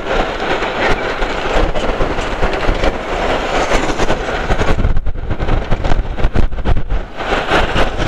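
Rushing wind on the microphone and road rumble from riding a Tunwal Elektrika e-bike at about 40 km/h. The noise turns choppier and gustier about five seconds in.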